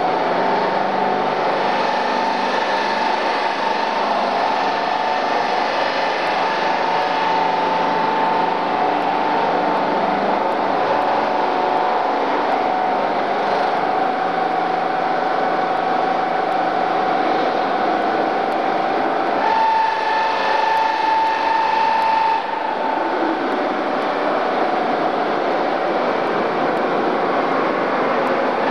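Autopulit automatic polishing machine's buffing wheel spinning against metal tubular seat frames: a steady rushing noise with a whine that dips lower in the middle and steps back up about two-thirds of the way through.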